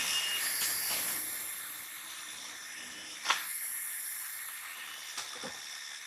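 A hiss that fades over the first two seconds and stays faint after, with a sharp click a little over three seconds in and two softer clicks near the end.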